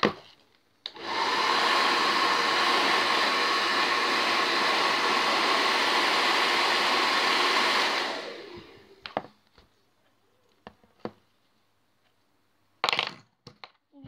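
Handheld hair dryer switched on about a second in, running steadily at full blow for about seven seconds with a faint steady whine in its airflow, then switched off and winding down. A few light clicks follow, and a short loud burst of noise comes near the end.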